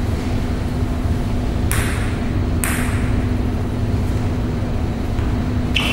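Table tennis ball tapped twice on the table, about a second apart, as the server bounces it before serving, over a steady low hum. Another sharp click comes near the end.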